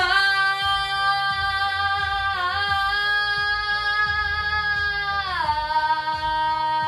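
A girl's voice singing one long held note into a microphone. It wavers briefly partway through, then steps down to a lower pitch about five seconds in. A backing track's low bass beat runs underneath.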